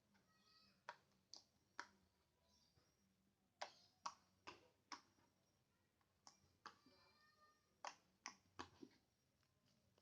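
Faint, sharp clicks and small pops at irregular intervals, about a dozen in all, from homemade slime being squeezed and poked.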